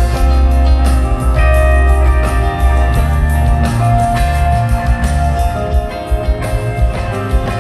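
Live rock band jamming: electric guitar leads holding and bending notes over bass and drums.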